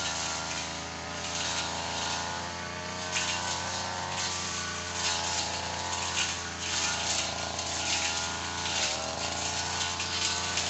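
Tanika 438ER engine running steadily at high speed, its pitch dipping briefly about nine seconds in as if it takes load, with recurring hissing swells over the engine note.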